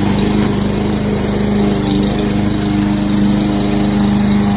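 A 21-inch gas lawn mower's single-cylinder Briggs & Stratton engine running steadily while mowing and mulching grass.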